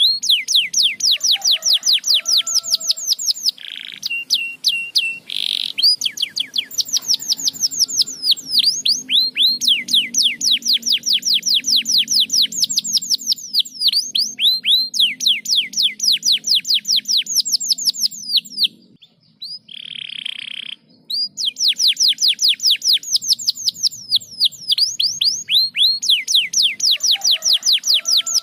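Domestic canary singing: long, fast trills of high descending whistles, about five a second, broken by short buzzy notes and a brief pause about two-thirds of the way through.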